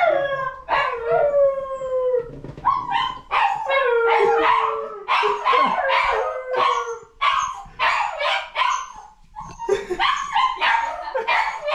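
Husky puppy howling and whining in a rapid string of high-pitched cries, several of them long and falling in pitch. The puppy is upset at being put in for a bath.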